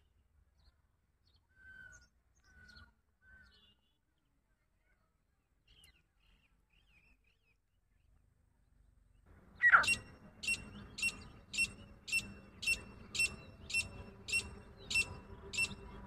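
Grey francolin calling. After a few faint chirps, a loud sharp note about ten seconds in starts a run of about a dozen harsh, evenly repeated calls, roughly two a second.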